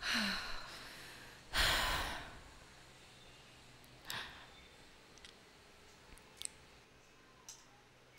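A woman sighs heavily: a short sigh that falls in pitch, then a longer, louder exhale about a second and a half in. A few faint clicks follow, from eyeglasses being handled.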